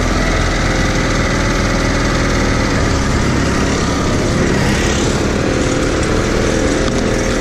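Rental go-kart's small petrol engine running steadily under the driver as the kart drives around the track.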